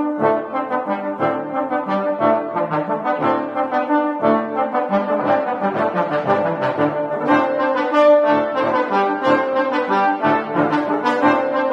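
Background music led by brass instruments playing a lively tune with a quick, pulsing rhythm.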